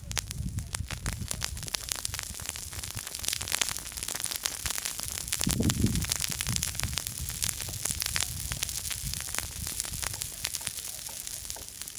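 Small campfire crackling, with many sharp pops over a hiss and a low rumble underneath; the rumble swells briefly about halfway through.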